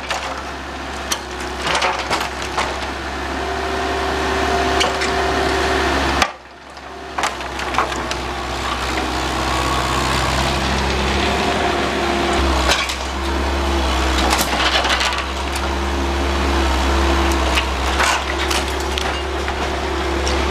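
Bobcat 331 compact excavator's diesel engine and hydraulics running with a steady drone and whine, while wooden wall framing cracks and splinters as it is torn down. The sound briefly cuts out about six seconds in.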